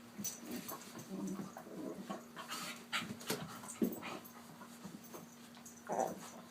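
Small papillon-mix dog making a weird, irregular run of short vocal noises while sulking because it is upset, with louder ones about four and six seconds in.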